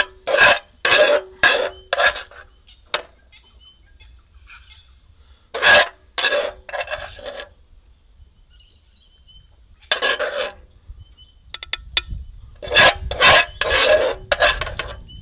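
A metal spoon scraping and scooping sauce from a non-stick frying pan in short strokes, ladling the last of the sauce and juice onto a plate. It comes in clusters: four quick scrapes at the start, a few more about six seconds in, one near ten seconds and a run near the end.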